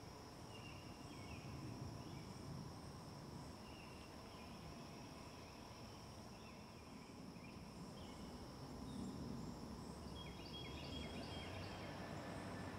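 Faint outdoor ambience: a steady high-pitched insect drone with short chirps repeating every second or so, over a low rumbling hiss. The chirps grow louder near the end.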